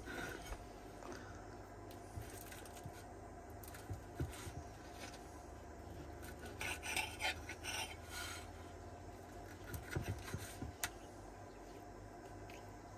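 Knife sawing through a crispy tortilla pizza: faint rasping and scraping in short bouts, busiest around the middle.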